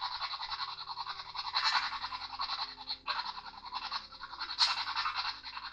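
Hissing static with a fast, uneven flutter.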